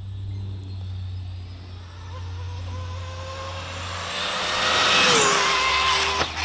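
ARRMA 1/7-scale electric RC speed-run car on an 8S flat-out pass: the motor's whine climbs in pitch and loudness as it approaches. The pitch drops sharply as it goes by, and the sound cuts out about six seconds in.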